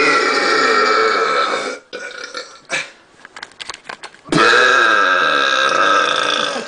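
Two long, loud, deliberately forced belches. Each lasts about two seconds, and the second starts about four seconds in.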